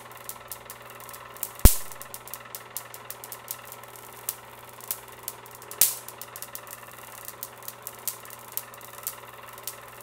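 Homemade Van de Graaff generator running with a steady motor hum and a fast scatter of small crackling ticks. Two loud, sharp spark cracks come a little under two seconds in and again about four seconds later, as the bottle capacitor (a Leyden jar, 'lightning in a bottle') charged by the generator discharges.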